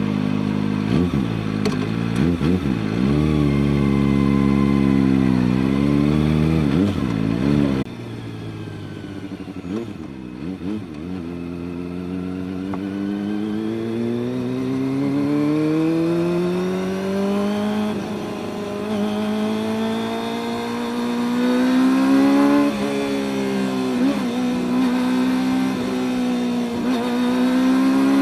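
Kawasaki ZX-25R's 250 cc inline-four engine running and revving. For the first eight seconds the note wavers up and down, then suddenly drops in loudness. After that the pitch climbs slowly in long pulls, falls quickly about 23 seconds in, and climbs again.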